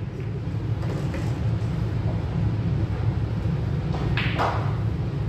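Steady low hum of a pool hall, with a few faint clicks and one sharp clack of billiard balls about four seconds in.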